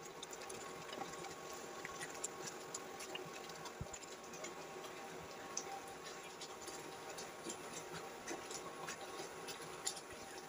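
Thick carrot and cornflour halwa simmering in a pan, its bubbles popping in small, irregular ticks and pops over a faint steady hum.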